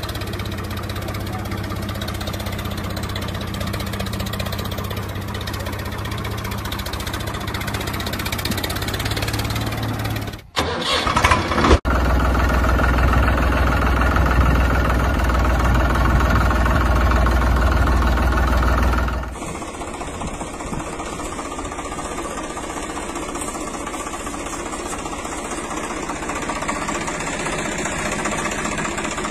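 Tractor engine running steadily. The sound breaks off and changes character abruptly about ten, twelve and nineteen seconds in.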